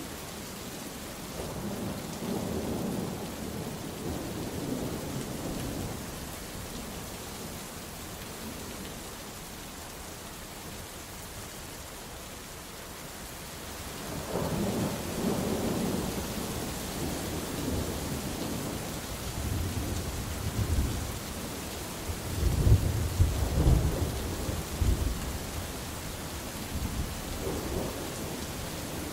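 Thunderstorm: steady rain hissing throughout, with rolling thunder. A first rumble comes a couple of seconds in; a second builds from about halfway and swells into its loudest, cracking booms about three-quarters of the way through.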